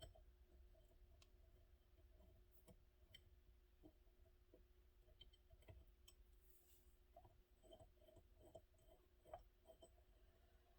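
Near silence, with faint scattered clicks and light taps from small parts being handled, a little busier near the end.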